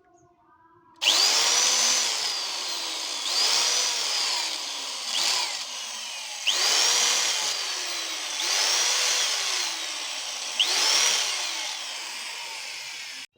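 Power drill run in about six repeated trigger pulls, driving into wood. Each pull starts with a quick rising whine that then sinks slowly as the motor slows under load, and the last one cuts off suddenly near the end.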